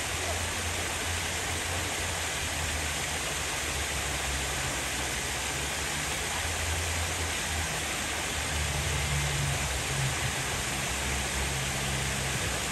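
Steady rushing noise of running water, with a low hum underneath that gets a little louder past the middle.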